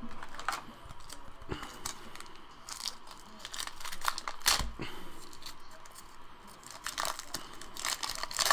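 Trading card pack wrapper being torn open and crinkled by hand, an irregular run of crackles and rustles with one sharper tap about midway.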